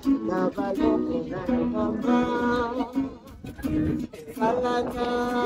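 Acoustic guitar being strummed and picked, with a voice singing along; the singing breaks off briefly about three seconds in, then comes back.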